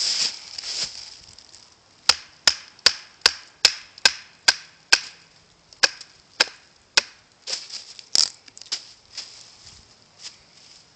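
A wooden baton knocking on the spine of a small carbon-steel fixed-blade knife (Habilis Bushtool) to split a piece of wood with easy taps. A quick, steady run of about eight sharp knocks comes at roughly two to three a second, then the knocks go on slower and more unevenly, with one louder strike about eight seconds in.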